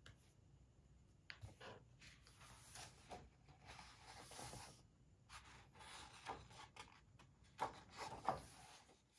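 Paper pages of a large photobook being turned and handled: faint, irregular rustling and sliding of paper, loudest as a page turns near the end.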